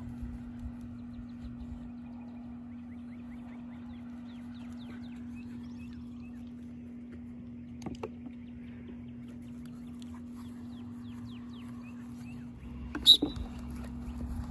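Outdoor ambience: a steady low hum with many short bird chirps. There is a light knock about eight seconds in and a sharp, louder knock near the end.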